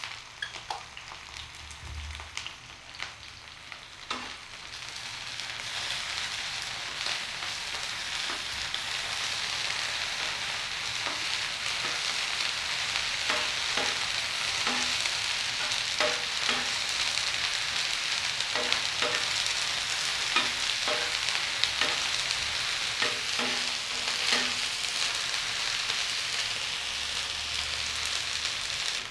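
Onions with ginger and garlic paste sizzling in hot mustard oil on a flat tawa griddle. A spatula clicks and knocks against the pan as they are stirred. The sizzle swells about five seconds in and then holds steady.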